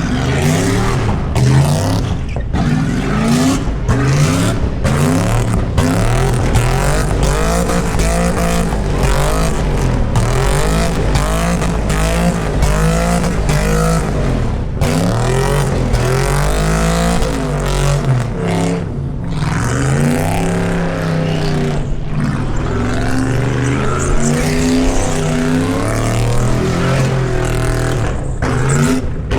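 V8 car engine revving hard during a burnout, its pitch rising and falling over and over with a few brief dips. Tyre noise runs beneath it.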